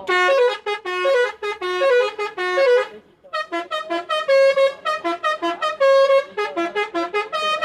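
Telolet horn on an ALS bus: a multi-tone air horn playing a quick melody of short, loud honked notes that step up and down in pitch. There is a brief break about three seconds in, then a faster run of notes.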